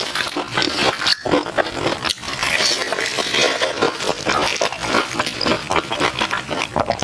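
Close-miked chewing of crispy fried banana in a glutinous-rice batter: a dense run of crunching and wet mouth sounds, with brief pauses about a second and two seconds in.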